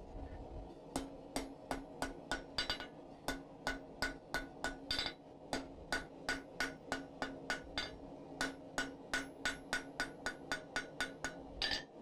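Blacksmith's hand hammer striking a glowing steel bar on the anvil in quick, even blows, about three a second, with a short pause about two-thirds of the way through. This is forge-welding the folded round-bar joint at welding heat.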